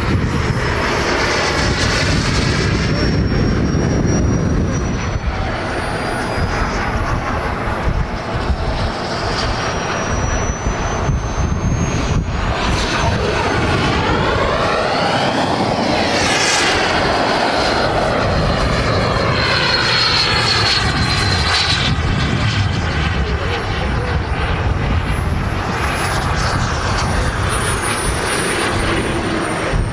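Turbine-powered RC model jet flying, a continuous rushing jet noise with a high turbine whine that slides in pitch as the plane passes, with the clearest pass about halfway through.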